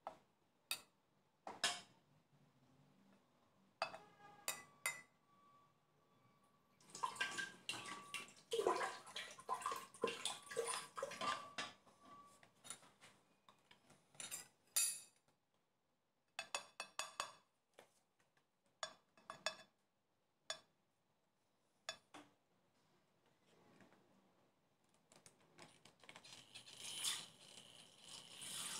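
Kitchen utensils clinking and knocking against a stainless-steel saucepan and a glass bowl while liquid is poured, with a run of busy clatter in the middle. A steady hiss builds near the end.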